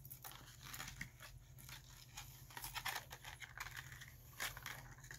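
Crinkling and light clicking of a clear plastic lure package being handled, in scattered short bursts.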